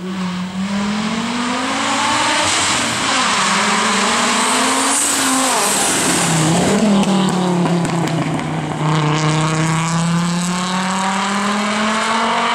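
Audi quattro rally car's turbocharged five-cylinder engine accelerating hard past, loud. Its pitch climbs and drops back at each gear change, with a long steady rise in the second half.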